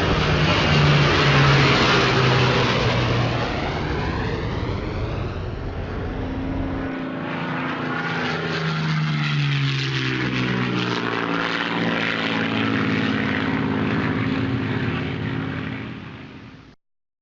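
Radio-controlled model airplane flying past, its engine and propeller running steadily with the pitch shifting as it moves. The sound cuts off abruptly near the end.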